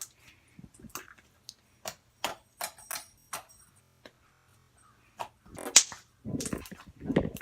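Slime being pressed and stretched by hand, giving irregular sharp pops and clicks about two or three times a second, then louder, longer squishing noises from about two seconds before the end.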